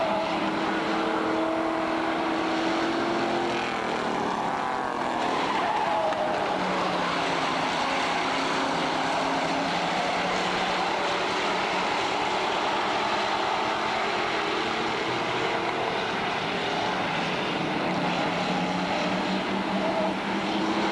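A pack of street stock race cars running flat out around an oval. Their engine notes are mixed together and rise and fall as cars pass and go through the turns.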